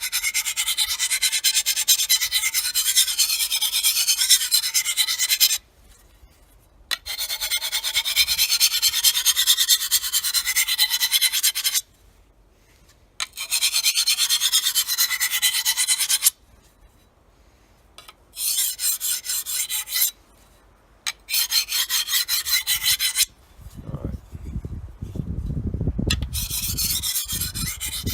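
Steel knife edge rasping along a coarse diamond sharpening plate in long runs of strokes, with breaks of a second or two between runs: an edge chipped from cutting in dirt being touched up. Near the end a lower rumbling handling noise joins the rasping.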